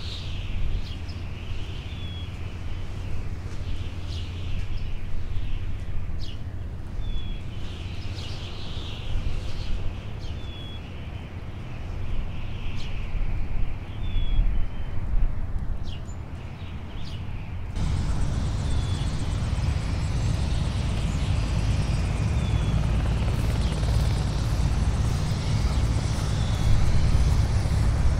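A steady low engine drone like an aircraft in flight, with faint short high chirps every couple of seconds. About two-thirds of the way through it jumps suddenly to a louder, fuller rushing drone.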